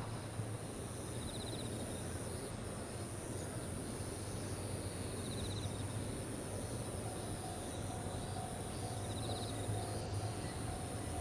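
Crickets and other insects shrilling in one steady high tone over a low outdoor rumble, with a few short chirping phrases. About seven seconds in, a faint steady hum joins as a distant train comes into hearing.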